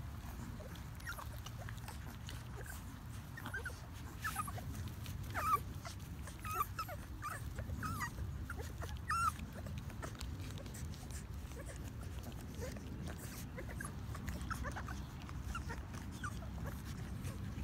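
Litter of young pocket pit bull puppies squeaking and whimpering while nursing. The short high squeaks come thickest in the first half and again near the end.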